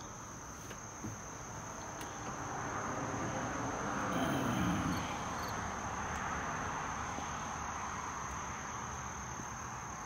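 Insects trilling in one steady, high, unbroken tone, with a broad rustling noise that swells about halfway through and then eases.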